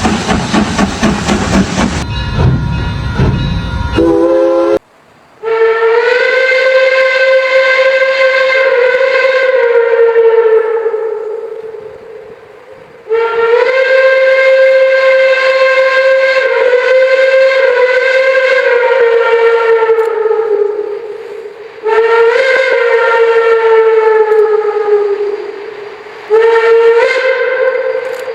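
Steam locomotive letting off a loud rush of steam, which cuts off abruptly about five seconds in. Then the locomotive's steam whistle sounds four long blasts, each sagging slightly in pitch as it fades out, the last one shorter.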